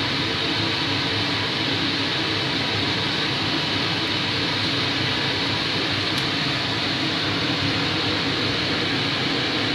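Coal forge fire burning under forced air from its blower: a steady, even rushing noise.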